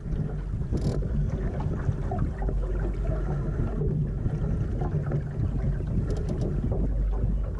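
Wind buffeting the microphone over water rushing and splashing along a Laser sailing dinghy's hull, with a few short clicks about a second in and around six seconds in.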